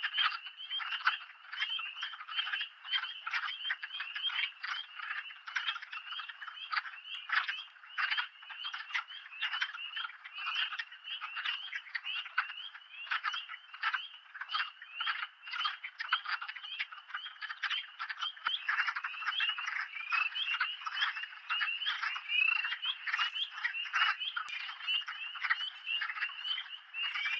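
Chorus of many male wood frogs calling at once, a dense, continuous overlap of short clucking calls at their spring breeding wetland.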